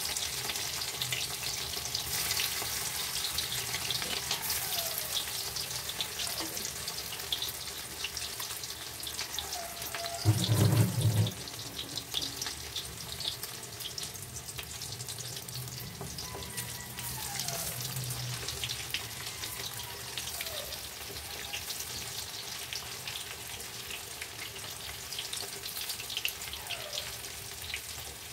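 Steamed cabbage cakes frying in hot mustard oil in a wok: a steady sizzle full of fine crackles. A brief low thud about ten seconds in.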